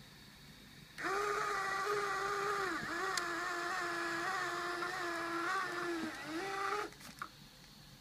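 Small electric motor in an Arduino-driven Polaroid camera converted for Instax Wide film, whining steadily for about six seconds as it drives the film, its pitch dipping briefly a few times before it cuts off. A couple of light clicks follow near the end.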